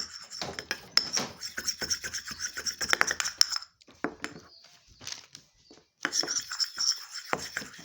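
A utensil scraping and stirring against a bowl while slime ingredients are mixed, in quick rasping strokes that pause for a couple of seconds in the middle and then start again.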